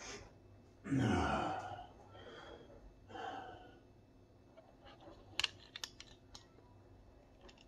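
A person exhaling heavily close to the microphone, one loud breath about a second in and two softer ones after it. A little past halfway comes a quick run of sharp clicks and taps from a hand handling the recording device.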